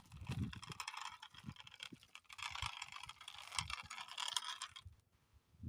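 Light, irregular clicking and rattling of small plastic toy vehicles being handled, with a few soft thuds. It stops about five seconds in.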